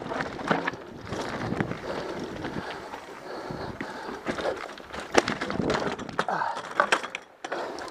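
Mountain bike rolling down a rocky trail: tyres crunching over dirt and stone while the bike rattles and knocks. Between about five and seven seconds in come the loudest sharp impacts, as the bike and rider go down on rock that the rider calls slick.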